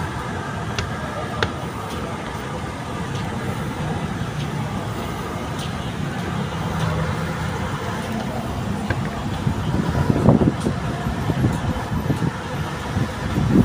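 City street traffic: cars and motorbikes running and passing on a busy road, a steady rumble that gets louder about ten seconds in.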